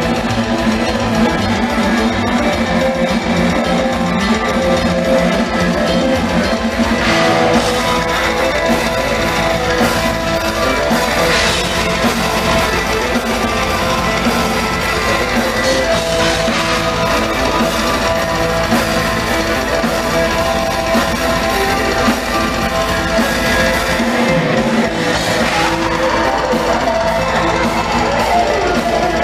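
Heavy metal band playing live and loud: distorted electric guitars over a full drum kit, with no vocals. Fast, even bass-drum strokes drive the first several seconds.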